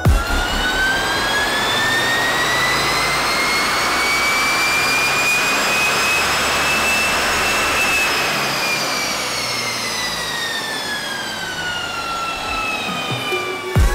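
Toyota GR Yaris's turbocharged three-cylinder engine running on a chassis dyno with its standard exhaust. It pulls up through the revs for about seven seconds and then runs back down, with a high whine that climbs and then falls along with it.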